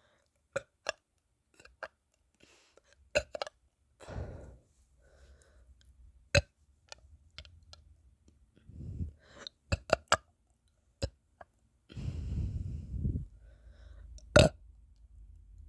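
A person burping repeatedly: several low, gritty burps, the longest lasting about a second around twelve seconds in, with short sharp clicks between them.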